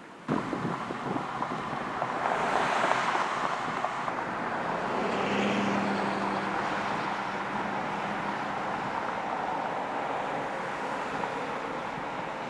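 Outdoor ambience of passing road traffic with wind on the microphone. Vehicles swell and fade about two seconds in and again around five to seven seconds, the second one with a low engine hum.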